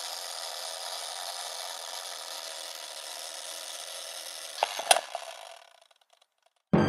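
Title-card intro sound effect: a steady rushing, scratchy noise that ends in a couple of sharp clicks about five seconds in and then fades out. Music starts just before the end.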